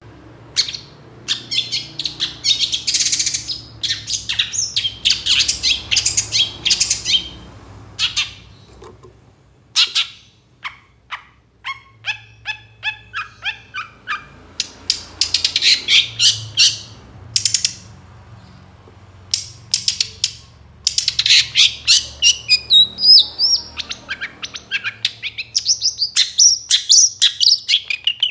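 Long-tailed shrike (cendet) singing hard: loud, fast strings of harsh chattering notes and squawks. Midway comes a run of quick, evenly repeated notes, and near the end a warbling phrase that goes up and down.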